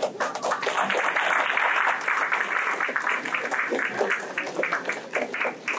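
Audience applauding: a dense burst of clapping that starts suddenly and thins to scattered separate claps over the last couple of seconds.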